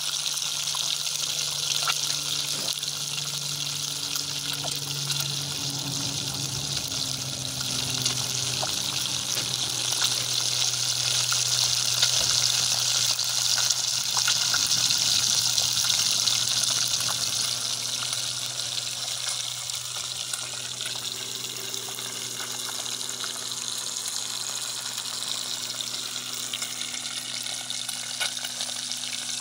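Fish slices frying in hot oil in an aluminium pot over a wood fire: a steady sizzle, loudest about midway through.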